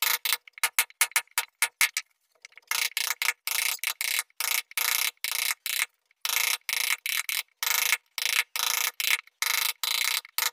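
Wooden mallet striking the handle of a carving chisel cutting into a wooden door panel, about three even taps a second, with short pauses about two and six seconds in. Each tap is clipped off sharply into silence.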